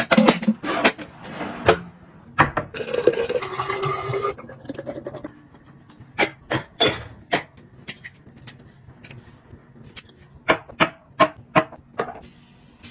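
Kitchen containers and dishes being handled and set down: scattered sharp knocks and clinks, with a brief ringing tone about three seconds in.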